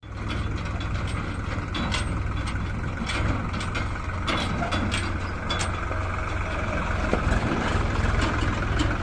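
Heavy diesel machinery running steadily with a deep engine rumble, with scattered sharp clanks and knocks over it.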